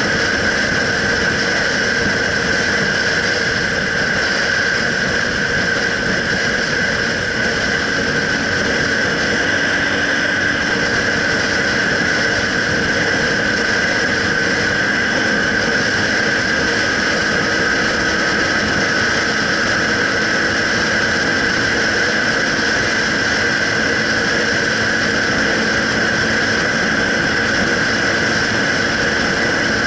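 Motorcycle running steadily at cruising speed, engine and wind noise picked up by a handlebar-mounted action camera, with a steady high whine over it.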